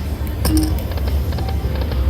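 Electronic slot machine music and game sounds over a steady low casino-floor hum, with a sharp click about half a second in and a few short beeping tones.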